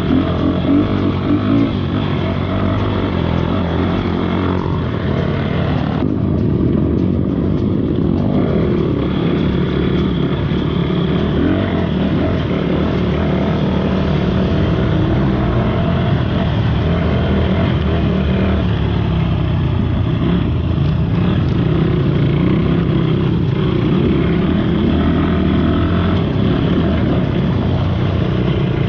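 Motorcycle engine running steadily while riding, without let-up.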